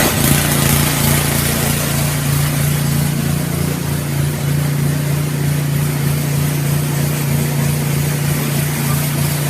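Toro 3521 snowblower's small engine running steadily at a constant speed.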